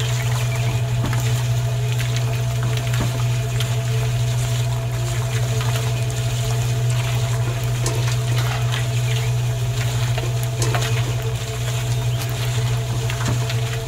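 Small electric motor running with a steady hum, turning a miniature belt-driven grinder that crushes strawberries. Scattered light clicks and a trickle of juice are heard over the hum.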